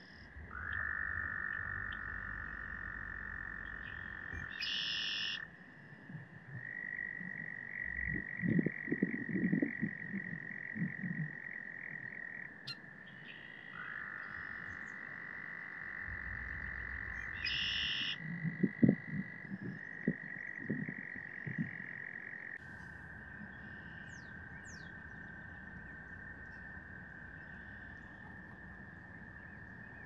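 Frogs trilling: long, steady trills of several seconds each, overlapping and taking turns. Twice, about a third and two thirds of the way through, a louder patch of low thumping noise.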